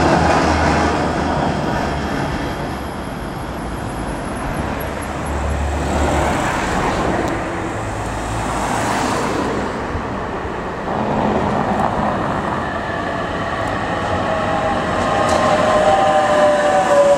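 Street trams running on their rails: a Leoliner low-floor tram at first, then an older GT4 articulated tram that approaches and passes close near the end, its whine falling slowly in pitch as it goes by.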